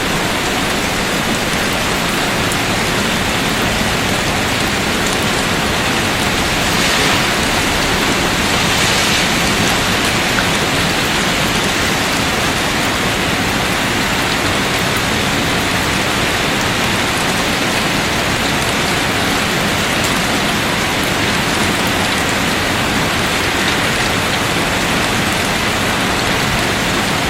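Steady heavy rain falling on a surface, a constant dense hiss with no let-up.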